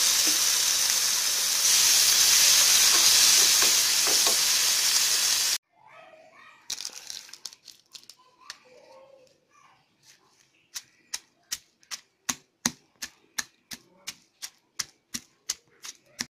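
Tomato pieces sizzling in hot oil in a frying pan, a loud even hiss that cuts off about five and a half seconds in. A few seconds later a wooden pestle pounds green chillies in a granite mortar, a steady beat of about three strikes a second.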